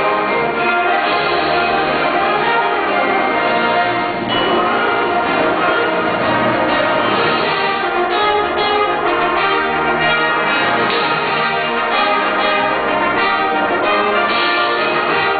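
High school symphonic band playing a full-ensemble passage, winds holding steady chords under a conductor.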